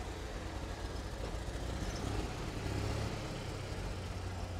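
1955 GMC one-ton tow truck's engine running at a steady low idle, picking up a little in a mild rev between about one and a half and three seconds in before settling back.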